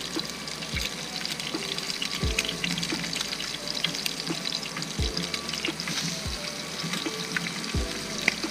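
Red roman fish frying in a hot pan: a steady sizzle with fine crackling, under background music with a soft beat.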